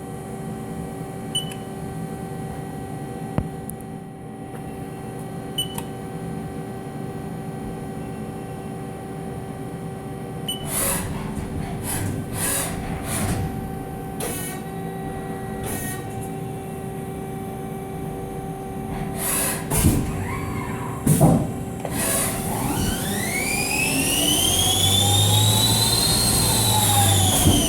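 Haas ST-20Y CNC lathe machining an aluminium part: a steady machine whine over running noise, with irregular bursts of cutting noise in the middle. Near the end the spindle speeds up and slows down again, a whine that rises then falls in pitch.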